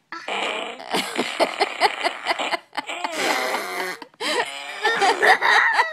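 Fart sound effects playing from a soundboard: a long run of rapid sputtering pops followed by pitched, wavering blasts.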